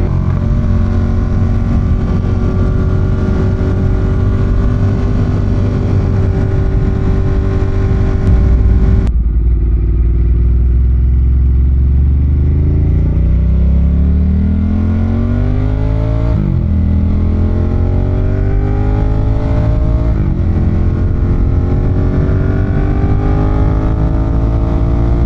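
Ducati Monster 1200's L-twin engine and exhaust on the move: a steady cruising note for the first nine seconds or so, then hard acceleration with the revs rising through the gears, with quick upshifts at about sixteen and twenty seconds.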